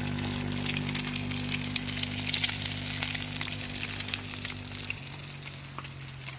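Food frying in a pan: a dense, steady crackling sizzle over a low hum that drops a step about five seconds in.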